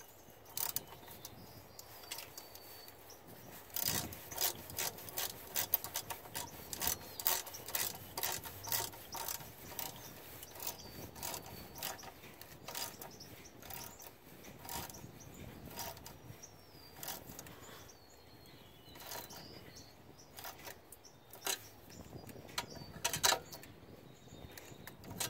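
Irregular sharp metallic clicks and taps from hand work on the clamps and fittings of a Detroit Series 60 diesel's turbocharger, coming in clusters with the loudest about four seconds in and again near the end.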